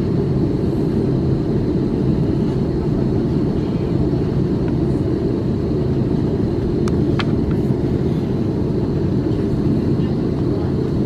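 Steady low rumble of an Airbus A330-900 taxiing, heard from on board, with a couple of faint clicks about seven seconds in.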